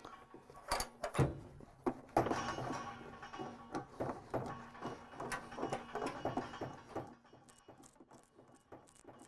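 Brass plumbing union being handled and lifted apart on a water heater's pipe: a few sharp metal clicks and knocks in the first two seconds, then a run of small taps and rubbing that stops about seven seconds in.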